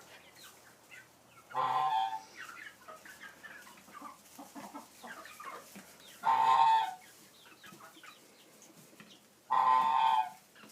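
Poultry calling: three loud calls, each under a second, about three to four seconds apart, with softer clucking and chirping between.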